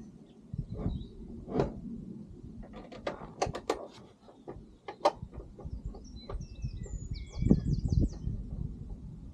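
Sharp clicks and knocks, a quick cluster of them about three seconds in, from hands and tools working on a car door being fitted, with a heavier low thump near the end. Birds chirp in the background, with a quick run of notes late on.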